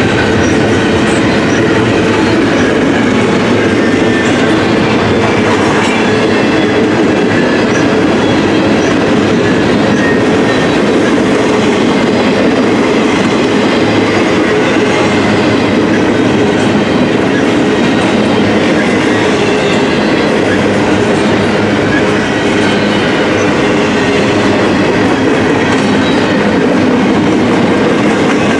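A train rolling past, its cars making a loud, steady rumble of wheels on rail with faint scattered ticks.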